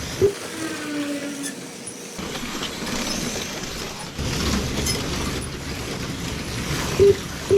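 Slot cars running with a steady whir, overlaid with a Legends race car engine sound effect whose pitch falls as it passes. Short electronic beeps from the lap-timing system sound just after the start and twice about seven seconds in.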